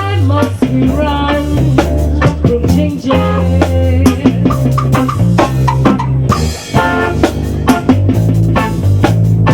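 A rock band playing live: a drum kit keeps a steady beat under guitar, with low bass notes changing pitch every second or so.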